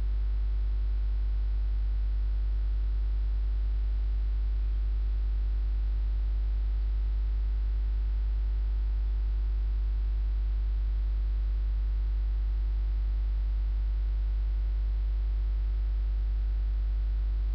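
Steady electrical mains hum, strongest at the bottom with a ladder of higher buzzing overtones, over a flat hiss of static.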